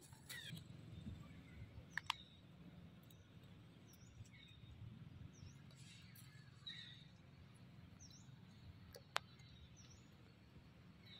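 Faint, short high chirps scattered throughout over a low background hum, with a few sharp clicks: two about two seconds in and one about nine seconds in.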